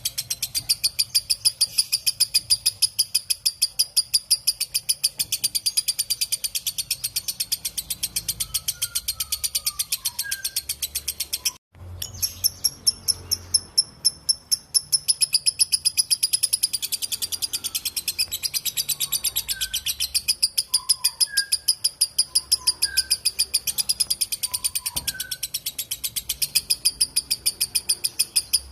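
Lovebird's long chattering song (ngekek): a rapid, unbroken string of sharp high notes that cuts out for a moment about twelve seconds in and then carries on. Fainter short chirps from another bird come in now and then underneath.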